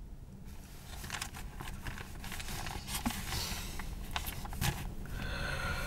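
Faint rustling and scattered small clicks and scrapes of paper sheets being handled.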